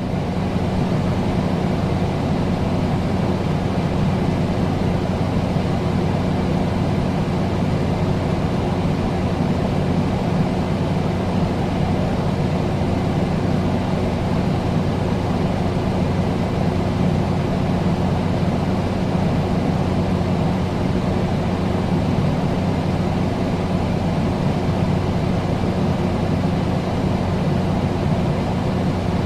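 Air conditioner running steadily: an even rush of air with a constant low hum beneath it.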